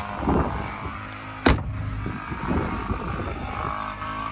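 The hinged front seat of a boat's center console, held up on gas struts over the console storage, shutting with a single sharp knock about a second and a half in, over a low steady rumble.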